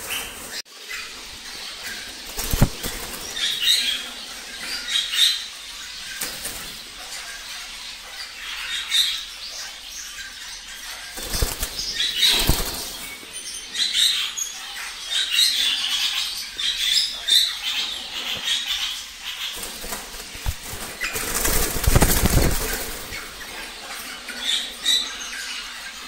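Cage birds flapping their wings, with short high chirps scattered throughout; the loudest bursts of flapping come about 3 seconds in, around 12 seconds and again around 22 seconds.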